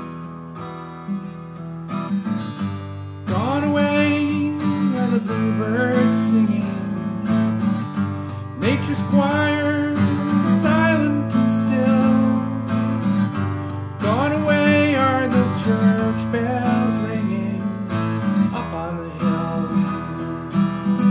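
Acoustic guitar strummed, with a man singing over it; the voice comes in about three seconds in and goes on in phrases.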